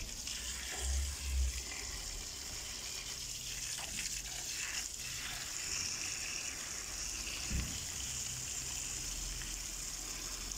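Water running and splashing over freshly picked herb leaves as they are rinsed by hand: a steady gushing hiss. A couple of low thumps about a second in.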